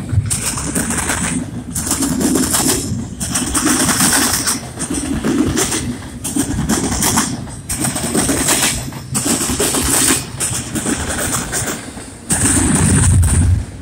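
CN double-stack intermodal freight cars rolling past close by, steel wheels clattering on the rails. The noise rises and falls in surges every second or two as the wheel sets go by.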